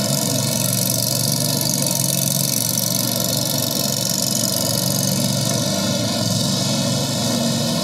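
Steady background din of a busy exhibition hall, an even wash of noise with no single sound standing out.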